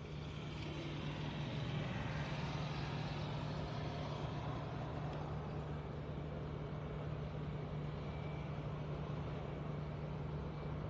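A motor vehicle engine running steadily, a constant low hum over a wash of outdoor noise, growing a little louder about a second in.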